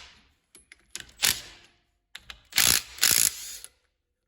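Ratchet wrench clicking in quick runs as nuts are wound off a Lister CS diesel engine: a short run about a second in, then a longer one of about a second.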